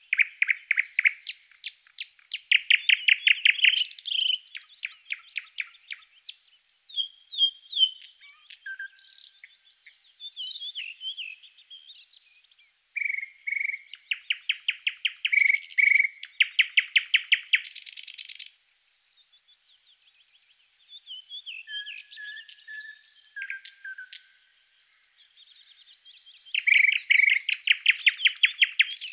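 Several songbirds singing: rapid trills, chirps and a few short whistled notes, in bouts with brief pauses between them. The birdsong comes from a recorded nature-sounds background track.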